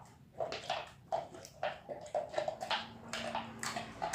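A large homemade slime being squeezed and worked by hand, giving a quick series of short, wet squelches, about three a second.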